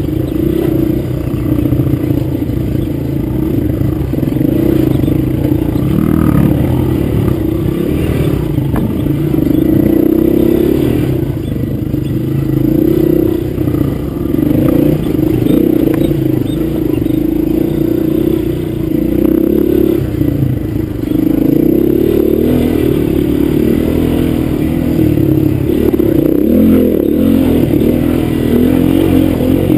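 Honda dirt bike's engine running continuously while riding, its pitch rising and falling as the throttle is opened and closed.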